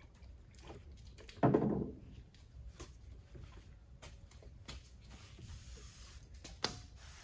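Quiet hand-work noises from a squirt bottle of isopropyl alcohol, a rag and a rubber trunk weatherstrip seal being handled. There is a brief louder squish about a second and a half in, then scattered light taps and clicks, with a sharper click near the end.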